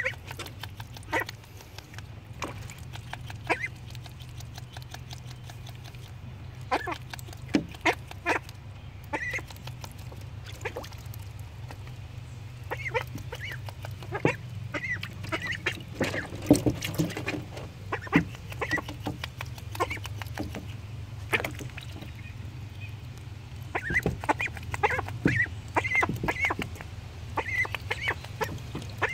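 Young ducks splashing and dabbling in shallow water in a plastic kiddie pool, with many short splashes and short duck calls now and then, more of them about halfway through and near the end.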